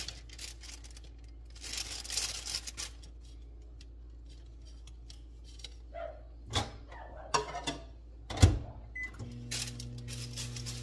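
Kitchen handling noises: a rustle, then a few knocks and clicks, then a short beep and a microwave oven starting up and running with a steady hum.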